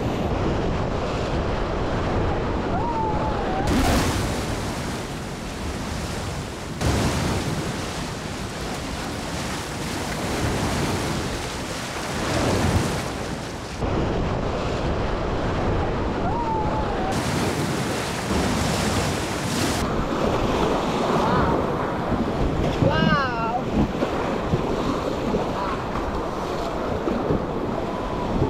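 Rushing river water splashing around an inflatable raft, with wind buffeting the microphone, swelling louder several times. A person whoops briefly about two-thirds of the way through.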